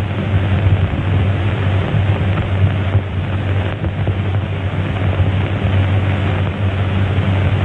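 Steady hiss with a low hum: the surface noise of an old optical film soundtrack.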